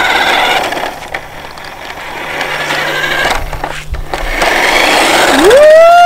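Toy remote-control buggy running on concrete: its small electric motor whirring and its tyres rolling, dropping away about a second in and swelling again near the end, with a few light knocks in the middle. Just before the end a long held high voice, the loudest sound, starts.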